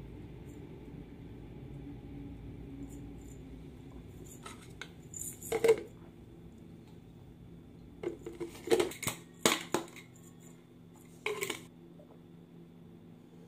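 Light clinks and knocks of small hard objects being handled on a counter, such as a jar and a ceramic mug, in three short clusters, the loudest about five and a half seconds in. A steady low hum sits underneath.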